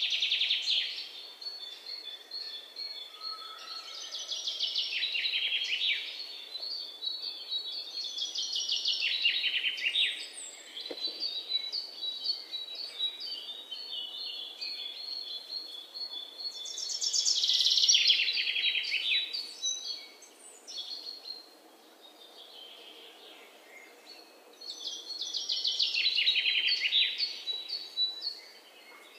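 Birds chirping: bursts of rapid, high chattering calls every few seconds, with runs of short, evenly repeated high notes between them.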